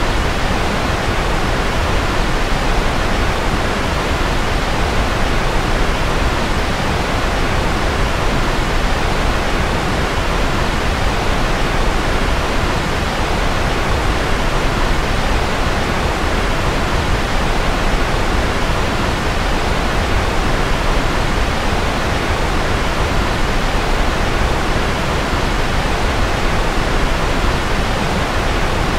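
Steady white noise: an even, unchanging hiss, thinner in the highest treble.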